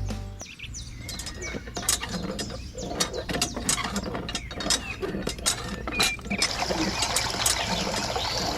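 An irregular run of small, sharp mechanical clicks and taps, several a second, over a faint hiss.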